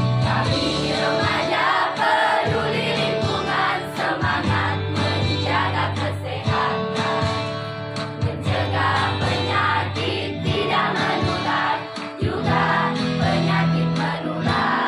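A youth choir singing, with instrumental accompaniment and a steady low bass line underneath.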